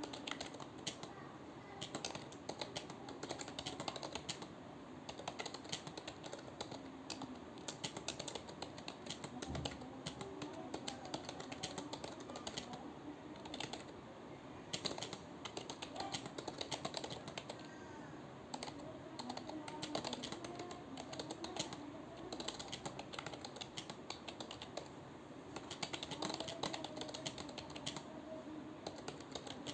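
Continuous fast typing on a computer keyboard: an uneven, rapid stream of key clicks with a few short pauses.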